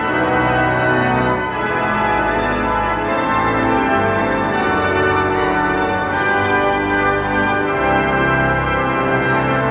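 Walcker pipe organ playing sustained chords, with the bass notes and harmony shifting every second or two.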